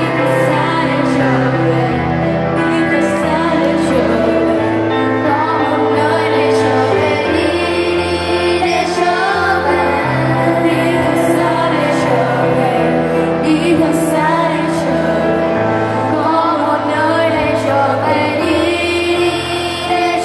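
Teenage girls singing a Vietnamese pop ballad into microphones, with two voices, accompanied by acoustic guitar and piano.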